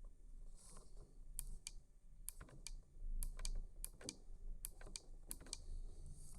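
Irregular light clicks and taps, about a dozen scattered through, from hard electric-skateboard wheel and drive parts being handled.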